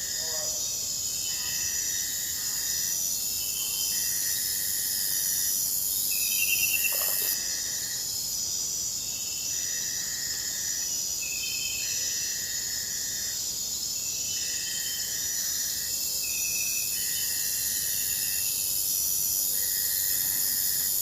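Jungle ambience: a steady high-pitched insect drone, with a call that repeats about every two seconds, each lasting about a second, and a few scattered bird chirps.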